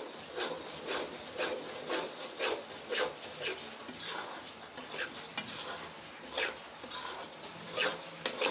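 Spatula scraping and stirring thick besan roasting in ghee in a steel kadhai, in short strokes about two a second. This is the slow roasting of the gram flour for besan halwa, done until it is no longer raw.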